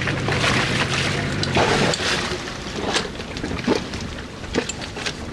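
Water sloshing and splashing around a sailboat under way, with irregular sharp slaps.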